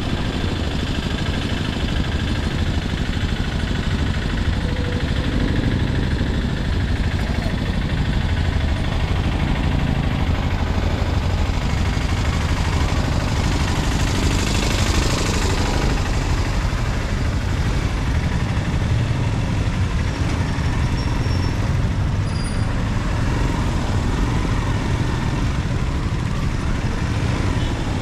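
Motorcycle engine running at low speed in slow town traffic, recorded from the bike itself, with the steady noise of surrounding street traffic. A brief hiss rises about halfway through.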